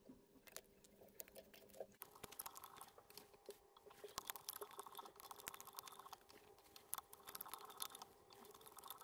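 Faint, irregular clicking and ticking of hand work at a fly-tying vise: tying thread being wrapped around a lead dumbbell eye on a jig hook.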